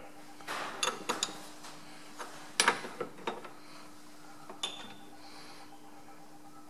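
A few light metallic clicks and taps as a steel 1-2-3 block is held against a lathe chuck and the threading tool is nudged square to it, over a faint steady hum that comes in after about a second.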